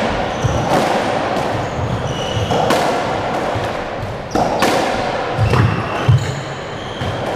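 Squash rally: sharp cracks of the ball off the racket and the walls every second or two, with short shoe squeaks and thudding footsteps on the wooden court floor.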